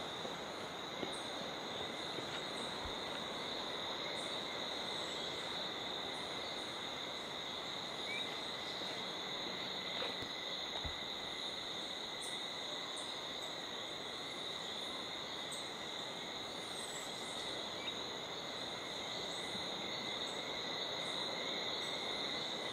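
Steady insect chorus: a continuous high-pitched trilling drone over a background hiss, with scattered faint short chirps above it.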